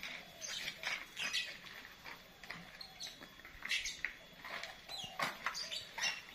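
Short, high-pitched animal calls, chirps or yelps, repeating at irregular intervals, several of them with quick pitch glides.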